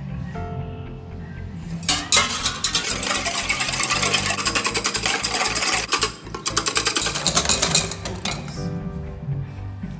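A wire whisk beating eggs in a stainless steel bowl: fast, rattling clicks of the wires against the metal, starting about two seconds in, with a short break near the middle, and stopping near the end. Soft background music plays under it.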